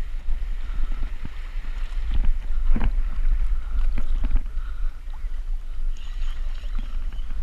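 Wind buffeting the microphone in a fluctuating low rumble, with a few scattered knocks and clicks.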